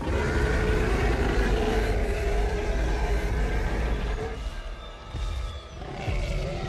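Film tyrannosaur roaring: a long, deep roar with a low rumble beneath it that starts suddenly and fades after about four seconds, followed by a shorter growl near the end.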